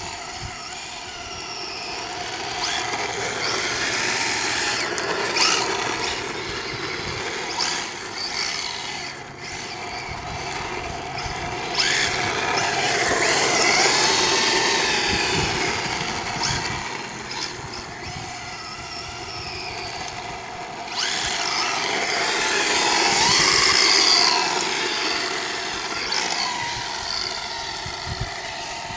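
Electric motor of a 1/10-scale RC drift car whining, its pitch rising and falling with the throttle, with two loud surges about twelve and twenty-one seconds in. Hiss of the tyres sliding on asphalt runs under the whine.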